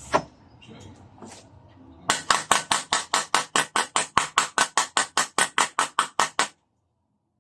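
A rapid run of about twenty sharp, evenly spaced taps, roughly five a second, starting about two seconds in and stopping abruptly after about four seconds.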